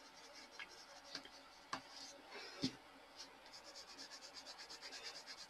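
Red Prismacolor colored pencil shading on smooth Bristol paper: faint, rapid back-and-forth scratching strokes, about eight a second. They pause in the middle for a few light clicks and a louder knock about two and a half seconds in, then pick up again.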